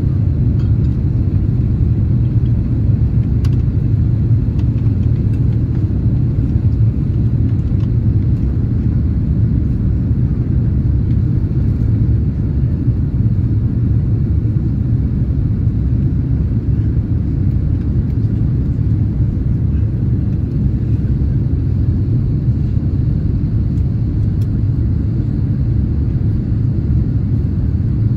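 Steady low rumble of an Airbus A330-300 airliner's engines and airflow, heard inside the passenger cabin during descent on approach to landing.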